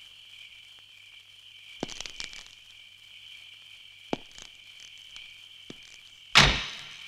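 Crickets chirping steadily, with a Hindustan Ambassador car's door unlatching and opening about two seconds in, a couple of soft knocks, and the door shutting with a loud slam about six and a half seconds in.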